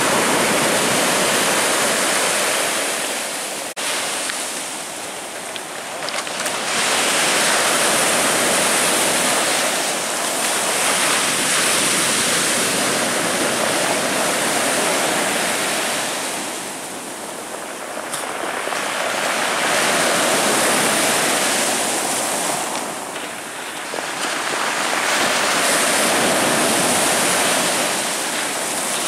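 Surf of a rough Black Sea breaking on the shore: a loud, rushing wash that swells and eases, falling back in three short lulls between waves. A single brief knock comes about four seconds in.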